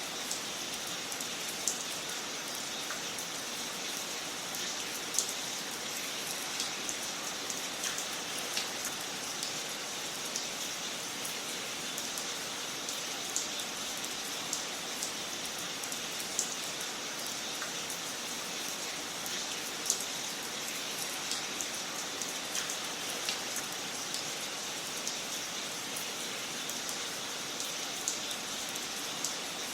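Wood fire crackling in a fireplace: a steady hiss with frequent sharp pops and snaps scattered throughout, a few of them louder.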